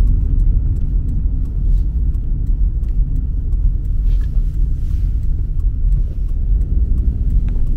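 Car driving on a road: steady low rumble of tyres and engine, with faint light ticks now and then.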